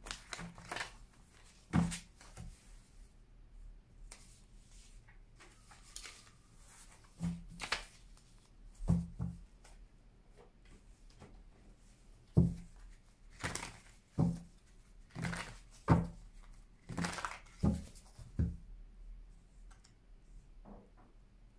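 A deck of tarot cards being shuffled and handled, with about a dozen short, sharp knocks and taps as the cards are squared and set down against the table.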